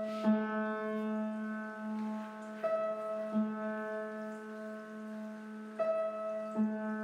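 Slow instrumental background music: pairs of struck, ringing notes repeating about every three seconds over a held low note.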